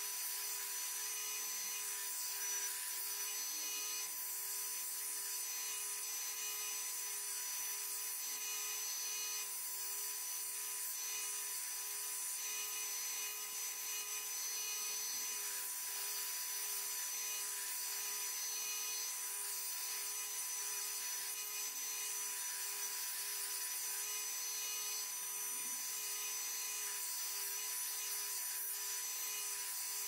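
Porter-Cable bench belt sander running with a steady whine while cut steel pieces are held against the belt, grinding their edges clean before welding.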